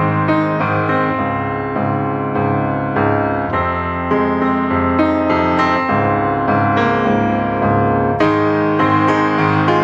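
Background piano music: a keyboard playing a steady, flowing run of notes.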